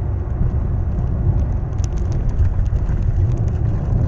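Steady low road and engine rumble inside a moving car's cabin, with a few faint clicks about two seconds in.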